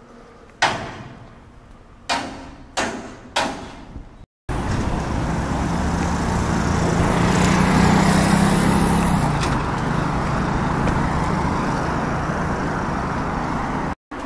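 Four sharp bangs in the first four seconds, each ringing out briefly. After a short silent gap comes steady street traffic noise, with a vehicle's low engine drone swelling and fading about halfway through.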